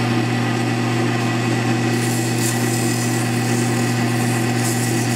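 A lathe's electric motor runs at a steady speed with an even hum. From about two seconds in, sandpaper held against the spinning wooden handle blank adds a light scratchy hiss.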